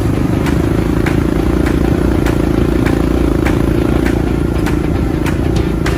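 Off-road vehicle's engine running steadily under load, with sharp knocks and rattles about twice a second from the vehicle bouncing over rough ground.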